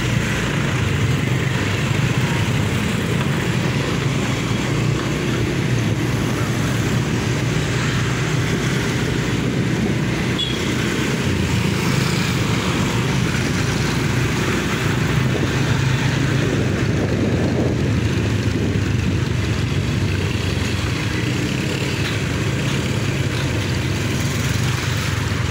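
Motor scooter running steadily while being ridden, with the even noise of road traffic around it.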